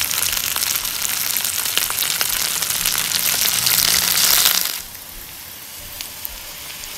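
Hot oil sizzling and crackling loudly as hake steaks fry in a grill pan. About five seconds in, the sound drops abruptly to a softer, steady sizzle of curry leaves frying in oil, with the odd pop.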